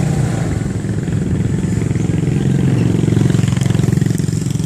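Motorcycle engine running at low speed with a steady throb, heard close up from on board. It grows a little louder around the middle, then eases off near the end.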